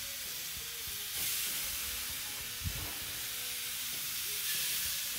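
Ribeye steaks sizzling on hot grill grates over a charcoal fire, a steady hiss that gets louder about a second in as another steak goes down on the grate.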